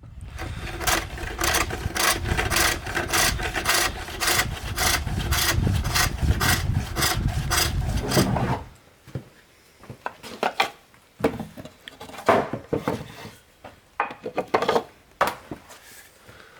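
Wood being worked by hand in quick, regular strokes, about three a second, with a rasping, sawing character. About eight and a half seconds in the steady strokes stop, and a few irregular scrapes and knocks on wood follow.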